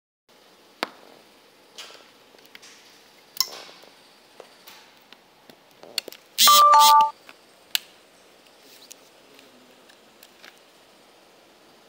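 Clicks and taps of plastic and metal parts as the battery and its wiring are fitted into an open plastic SHR/IPL hair-removal handpiece. About halfway there is one loud sound, about half a second long, with a high steady tone that drops in pitch.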